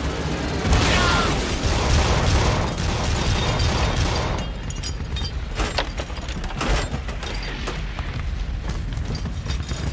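War-film battle sound effects: a dense, continuous mix of explosions and gunfire over a heavy low rumble, surging loudest about a second in, with a few sharp single shots or impacts in the second half.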